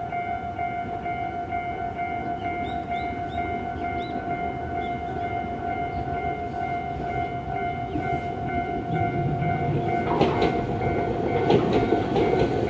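Level-crossing warning alarm ringing with a steady electronic tone. About ten seconds in, an Iyotetsu 3000-series electric train rolls onto the bridge: a rumble grows louder, with clicks of the wheels over the rail joints.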